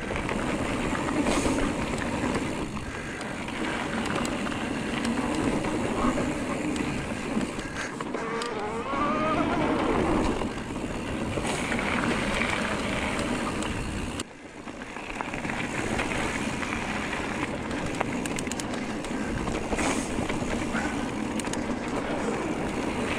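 Giant Trance E+3 electric mountain bike ridden down a trail: a steady rushing riding noise, with a short gliding whine about nine to ten seconds in and a sudden brief drop in level about fourteen seconds in.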